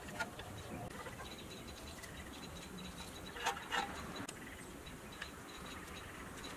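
Light handling clicks and taps of a pressed-steel toy truck cab as rubber tires are fitted onto its axles, the clearest a pair of clicks about three and a half seconds in.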